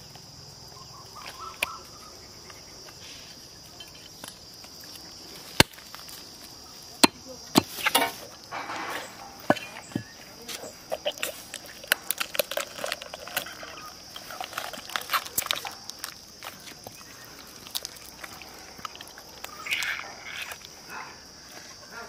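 Wet squelching, crackling and sharp clicks of hands pulling the innards and gills out of a large gutted catfish, busiest from about 7 to 16 seconds in, over a steady high drone of insects.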